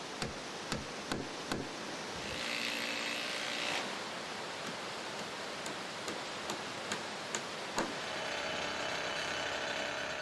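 Hammer driving nails into the timber decking boards of a footbridge, sharp blows at about two a second, pausing for a couple of seconds near the start. Near the end a steady engine hum takes over.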